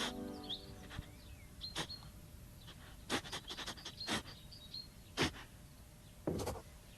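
Quiet background hiss with a few faint, short, high bird-like chirps and scattered sharp clicks, the loudest click about five seconds in. The tail of a music cue dies away at the very start.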